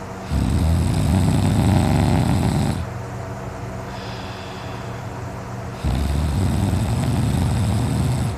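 A sleeping man snoring loudly: two long, rattling snores, each about two and a half seconds, with a few seconds of quieter breathing between them.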